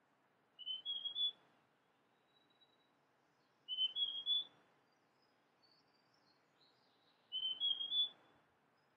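Male large niltava (Niltava grandis) singing: three short phrases about three seconds apart, each of three or four clear whistled notes stepping up slightly in pitch.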